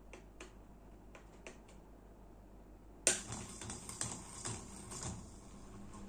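HTC FC-06-600 mini ceiling fan being switched on: a sharp click about three seconds in, then a couple of seconds of clicking and knocking as the motor starts up with a low hum. A few faint ticks come before it.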